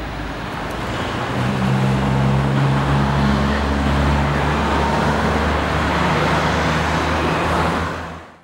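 A motor vehicle engine running close by amid street traffic noise, swelling about a second and a half in, then fading out near the end.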